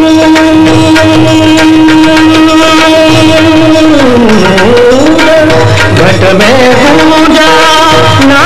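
Indian devotional song: a singer holds one long steady note, then about four seconds in breaks into a sliding, ornamented melodic run, with a steady drum beat underneath.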